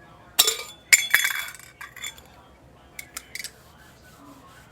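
Metal camp cookware and utensils clinking and knocking together: a cluster of sharp clinks about half a second to a second and a half in, then a few lighter clinks around three seconds in.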